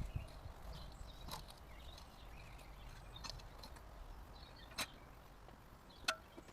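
Faint low rumble with four sharp, scattered clicks or knocks.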